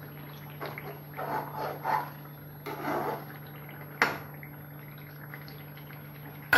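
A metal spoon stirring chicken in thick, bubbling gravy in a metal kadai, with several wet scraping strokes in the first three seconds, then a single sharp tap of the spoon on the pan about four seconds in. A steady low hum runs underneath.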